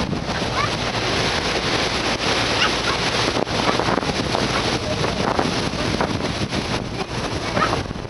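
Wind buffeting the microphone over the steady rush of sea water past a motor ship under way, with a few brief high chirps.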